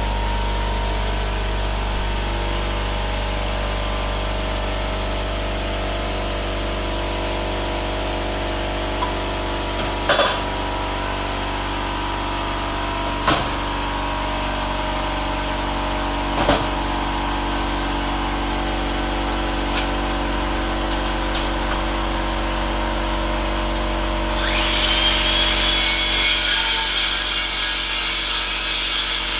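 Air compressor switching on and running steadily, with three sharp knocks in the middle. Near the end a power saw begins cutting through wood over it, louder and with a whine.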